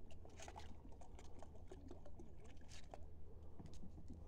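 Water poured from a plastic bottle into plastic tubs, faint, with scattered light clicks and taps.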